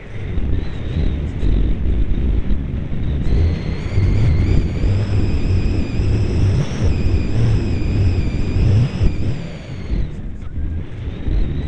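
Model airplane in flight heard from its onboard camera: heavy wind buffeting on the microphone over the high, slightly wavering whine of its motor and propeller. The whine grows stronger a few seconds in and drops away briefly near the end as the throttle comes back.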